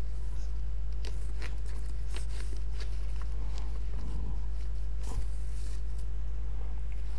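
Steady low electrical hum, with a few faint clicks and ticks scattered through it.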